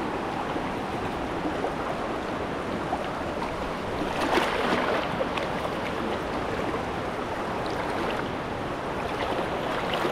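Swift, flood-swollen mountain stream rushing over rocks: a steady wash of water noise, with a brief louder surge about four seconds in.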